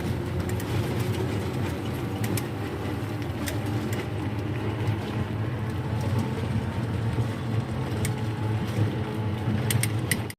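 Steady rumble of a moving battery e-rickshaw (toto) heard from on board, with scattered light clicks and rattles.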